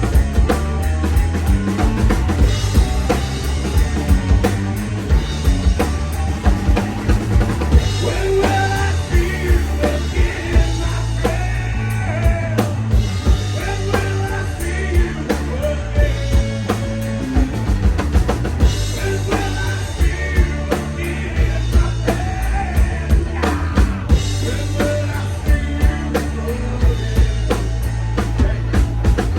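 A rock song played with a full drum kit keeping a steady beat, a prominent bass drum and a wavering melodic line on top.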